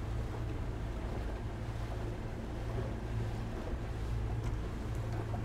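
Outboard motor running steadily as a small open boat cruises, with water rushing in the churning wake and wind buffeting the microphone.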